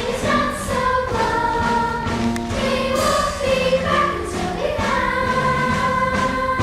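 A group of young voices singing together, a chorus number from a children's stage musical, with held notes that change pitch every half second or so.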